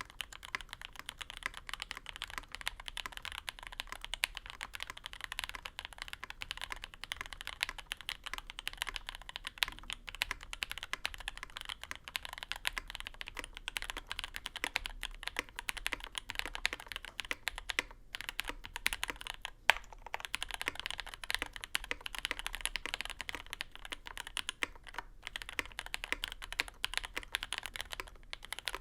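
Fast, continuous typing on a custom tenkeyless mechanical keyboard: lubed and filmed JWK Lilac linear switches in an aluminium plate, with GMK keycaps. It is a sound test, first of the stock foam build and then of the board with plate foam and a tape mod, with a few short pauses.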